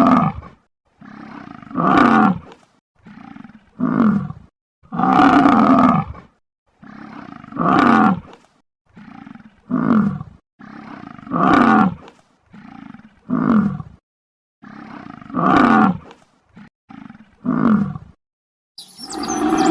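Bison bellowing: about ten loud calls, roughly one every two seconds, each falling in pitch, with a quieter low grunt between them.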